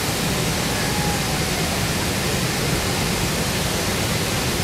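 A large waterfall in monsoon flood, its water falling and crashing in a steady, loud rush of noise.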